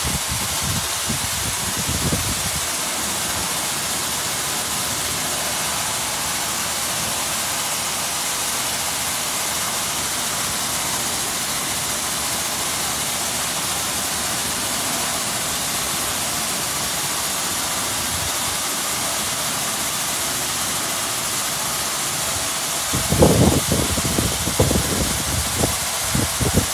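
Ryko SoftGloss Maxx 3 automatic car wash spraying water over a car in touch-free mode: a steady, even hiss. Near the end, irregular low rumbles break in.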